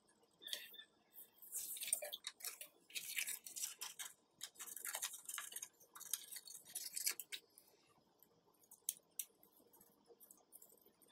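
Purple craft paper being handled and cut with scissors: several runs of crisp rustling and snipping over the first seven seconds, then only a few faint clicks.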